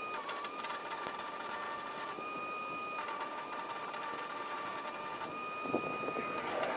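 Electric arc welding on steel cattle-panel wire: the arc crackles in three runs of about two seconds each, with short pauses between them. Under it a steady high whine dips slightly each time the arc strikes.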